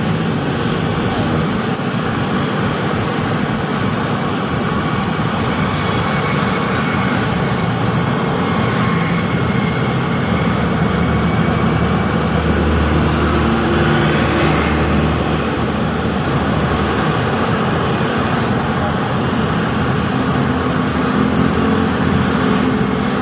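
Steady road traffic: cars and motorcycles passing on a wide multi-lane road, engines and tyres blending into a continuous noise, with a deeper engine sound swelling about halfway through.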